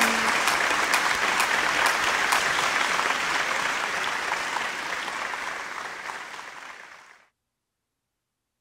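Crowd applause, a steady patter of many hands clapping that fades out gradually and stops about seven seconds in.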